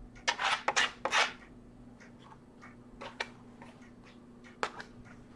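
A plastic card scraping wet paint across a stretched canvas: a few quick scraping strokes in the first second and a half, then a few light clicks and taps.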